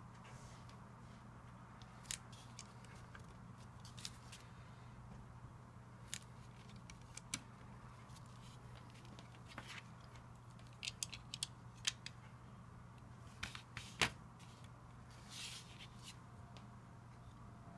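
Plastic Lego bricks clicking and snapping as they are handled and pressed together. The clicks are short and sharp and come at irregular intervals. They are busiest from about eleven to fourteen seconds in, over a faint steady low hum.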